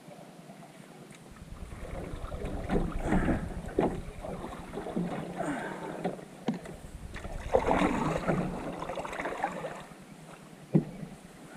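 Paddle strokes working a Wenonah Prism Ultralight solo canoe through the water: irregular splashing and dripping, with a few sharp knocks, the last one near the end.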